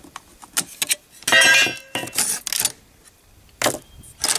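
AK-47 receiver dust cover being unlatched and lifted off by hand: a few light metallic clicks, a longer metal-on-metal scrape with a faint ring about a second and a half in, and a sharp clack near the end.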